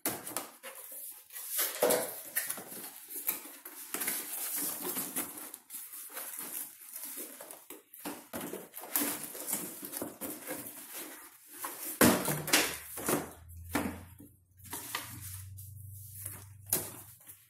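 Cardboard box being cut open and unpacked: scissors slicing packing tape, then cardboard flaps and packing scraping and rustling as the box is handled. From about twelve seconds in there are several sharp knocks, with a low steady hum beneath them.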